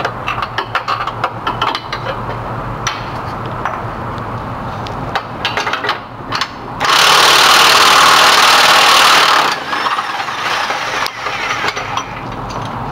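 Tool clicks and clanks over a steady low hum. About seven seconds in, a loud, even burst of about two and a half seconds, typical of an air tool, cuts off suddenly.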